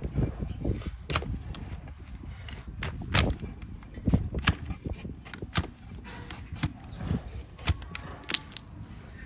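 Long-handled flat hoof-trimming blade pared down through a donkey's hoof wall against a wooden block: a series of sharp cuts, irregularly spaced, about one or two a second.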